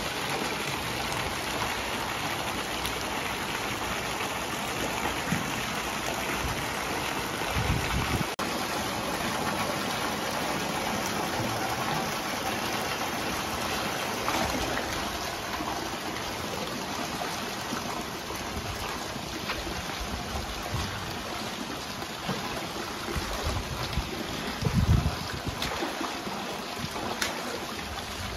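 Steady rush and splash of water from a hose jet pouring into a pool, with a couple of brief low thumps about eight seconds in and near the end.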